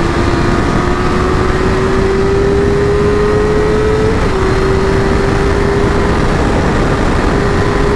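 Suzuki GSX-R 1000 K7's inline four-cylinder engine pulling hard, its pitch climbing steadily, then dropping suddenly about four seconds in as it shifts up, and running on at an even pitch. Heavy wind rush on the helmet-mounted microphone at speed.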